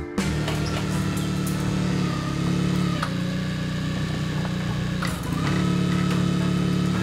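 Clark forklift running steadily while it lowers a load, its hum dipping briefly a little after two seconds and again around five seconds, then running a bit louder, with a couple of light knocks.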